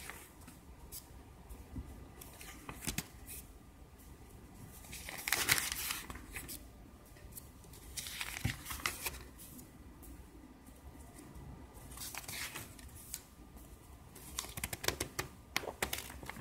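Pages of a paper IKEA catalogue being turned by hand: several rustling page turns, the loudest about five seconds in.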